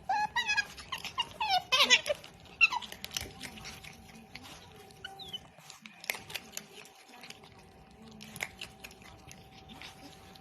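Pet otter squeaking in quick wavering chirps for the first couple of seconds while eating, then chewing its food with scattered crunchy clicks and an occasional short squeak.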